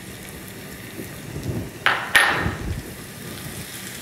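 Small glass bowls knocking against a nonstick frying pan as chopped shallots and mushrooms are tipped in: two sharp clinks about two seconds in, the second louder and briefly ringing, with softer knocks and shuffling around them.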